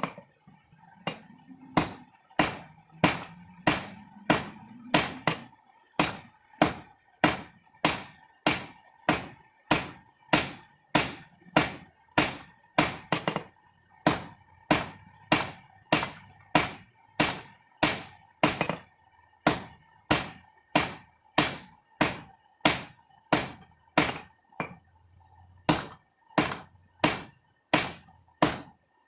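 Hand hammer striking hot rebar steel on an anvil, forging a knife blade: a steady run of ringing blows about one and a half a second, with a brief pause near the end, over a faint steady hum.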